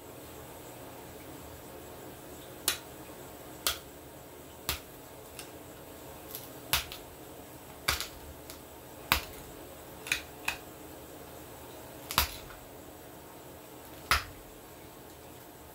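About ten sharp clicks, roughly one a second and unevenly spaced, from a hand tool pressed and worked against a flexible sheet held on the lap.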